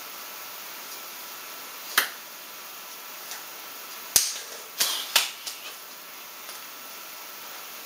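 Four sharp smacks of the signer's hands, one about two seconds in and three in quick succession between four and five seconds, over a steady background hiss.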